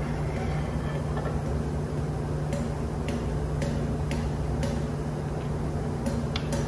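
Steady low hum of ship's engine-room machinery running, with a few sharp light clicks scattered through the second half.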